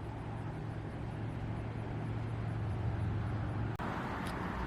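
Steady road traffic noise from vehicles on the highway, with a constant low hum under it; the background changes abruptly near the end.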